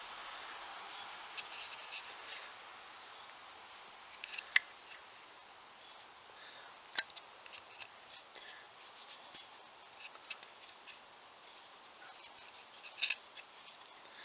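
Two pairs of locking pliers turning a threaded bolt out of a metal adjustable foot-pad insert as it works loose: faint scattered metallic clicks and small squeaks, with sharper clicks about four and a half and seven seconds in.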